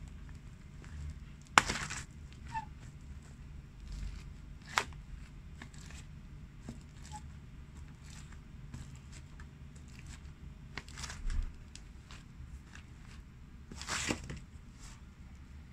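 Shoes pressing down on and crushing pumpkin chunks and seeds, with scattered sharp cracks and squelches. The loudest snap comes about a second and a half in, and there is another cluster near the end.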